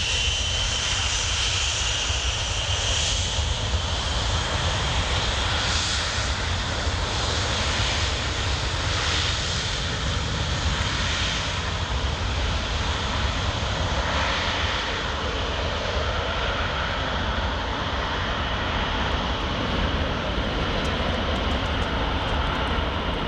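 Jet airliner engines running with a steady high-pitched whine over a continuous low rumble.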